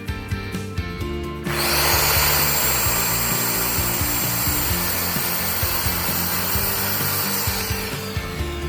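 Circular saw spinning up and cutting through a wooden board, with a high whine over the cutting noise for about six seconds, then winding down near the end. Background music with a steady beat plays under it.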